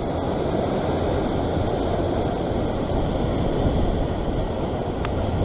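Ocean surf surging and washing over a rock ledge: a steady rush of water and foam.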